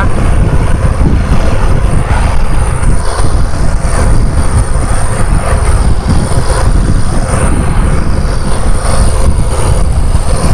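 Fishing boat engine running hard at cruising speed: a loud, steady rumble mixed with rushing water and wind.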